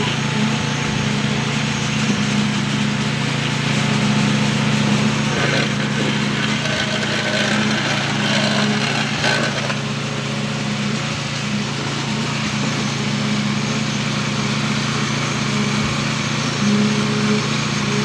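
Boom concrete pump truck's engine and pump running steadily while concrete is pushed through the delivery hose.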